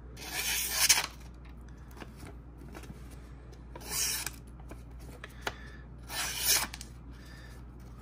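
Freshly sharpened Victorinox Spartan pocket-knife blade slicing through a post-it note: three short cutting strokes a couple of seconds apart as it carves curves in the paper. This is a cut test of the new edge, and the clean curved cuts show a consistently sharp blade.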